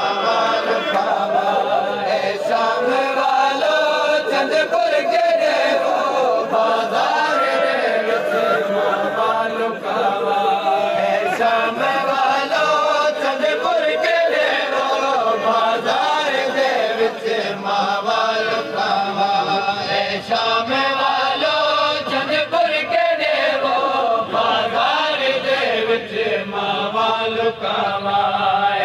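Men's voices chanting a noha, a mournful Shia lament, with a lead reciter's sung lines carried by the surrounding crowd.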